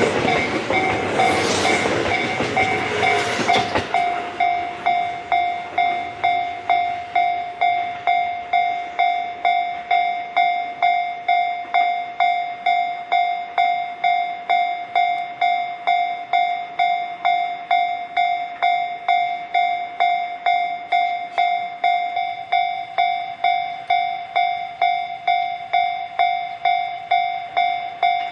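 A train runs past over the rails for the first few seconds, then fades. A Japanese level-crossing warning bell rings steadily throughout, an even electronic ding repeating nearly twice a second, signalling that the crossing is closed for a train.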